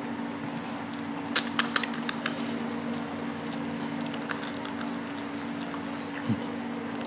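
Crisp pani puri shell crackling as it is broken open with the fingers, a quick cluster of sharp cracks about a second in and a few fainter ones later, over a steady low hum.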